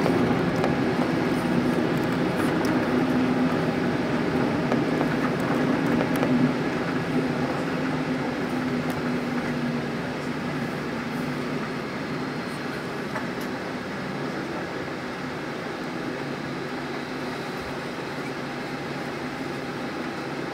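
Cabin noise inside a Boeing 747-8 taxiing just after landing: a steady rush of engine, air and rolling noise with a low hum that fades out about halfway through. The whole grows gradually quieter over the first half as the jet slows, then holds steady.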